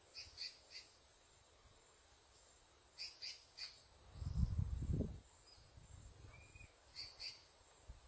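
Short high chirps in quick groups of two or three, repeating every few seconds, over a steady high hiss. A low rumble, the loudest sound, comes about four seconds in.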